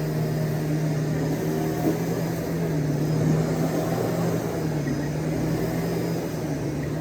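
Shark DuoClean PowerFins vacuum cleaner running, a steady motor hum over the rush of air.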